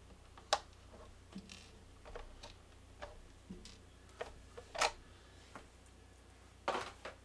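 Stainless steel body pins being pulled off an RC truck's body posts: a scattered series of small sharp clicks and handling rattles, the loudest about five seconds in.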